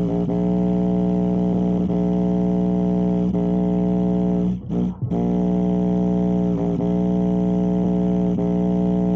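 Instrumental of a rap track played through a Defender subwoofer speaker at full volume: a sustained, distorted guitar-like chord over a steady bass note, with two short dropouts near the middle.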